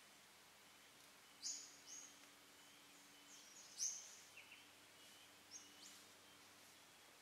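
Quiet bush ambience with small birds giving short, high-pitched chirps, two louder calls about one and a half and four seconds in and a few fainter ones after, over a faint steady hiss.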